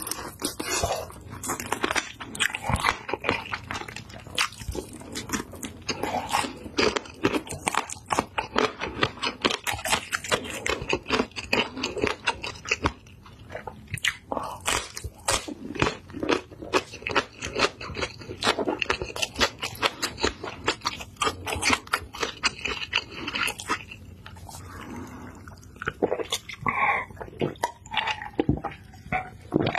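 Close-miked crunching and chewing of a green chili pepper, with many sharp crisp bites and wet mouth sounds. Near the end the crunching thins out into swallowing gulps of a drink.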